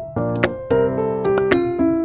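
Background instrumental music: a light piano or keyboard melody over sustained chords, with new notes struck several times a second.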